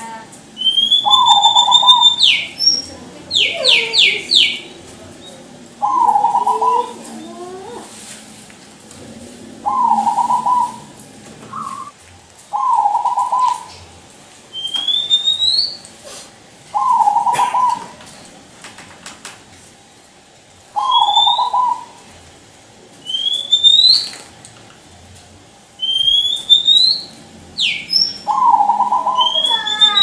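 Zebra dove (perkutut) cooing: seven short, warbling phrases, each about a second long, a few seconds apart. A second bird calls in between with high, rising whistled notes.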